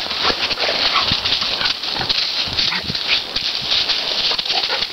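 Dry fallen leaves crackling and rustling under dogs running and scuffling through them and under walking feet, with a few short, low dog sounds mixed in.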